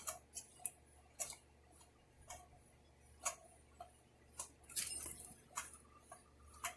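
Irregular light clicks and clinks of hand tools and loose metal parts being worked on a pocket bike's rear wheel hardware, with a busier run of knocks about five seconds in.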